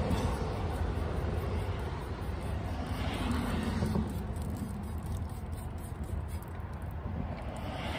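Trigger spray bottle spritzing water onto soapy hands to rinse them, over a steady low rumble.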